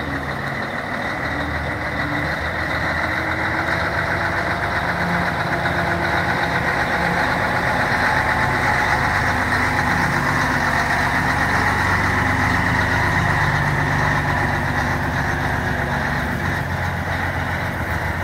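Scania 113H Top Line truck's straight-six diesel engine running as the tractor unit rolls slowly past, growing louder as it comes close and easing off a little as it pulls away.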